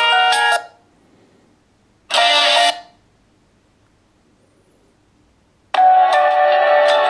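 Nokia X7 stock ringtones played one after another: a melodic phrase of stacked notes ends just after the start, a short chime of under a second sounds about two seconds in, and another melodic tone begins near six seconds in, with silence between them.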